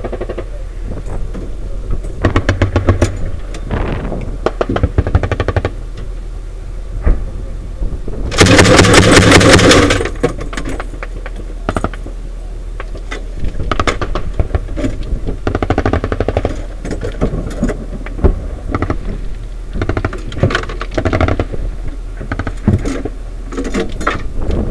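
A loud burst of automatic weapon fire about eight seconds in, lasting under two seconds, amid bouts of metallic rattling and clanking in an armored vehicle's gun turret, over a steady low hum.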